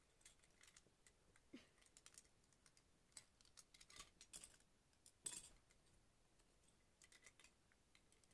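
Faint, scattered clicks and light clatter of plastic Lego bricks being picked up and handled, the loudest clatter about five seconds in.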